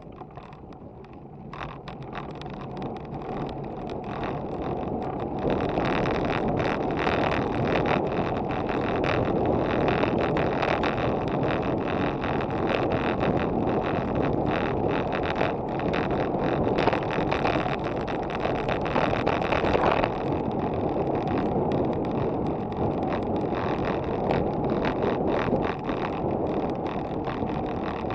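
Wind rushing over an action camera's microphone on a moving road bicycle, with the bike's tyres running on the path. It builds over the first few seconds as the bike speeds up, then holds steady at cruising speed.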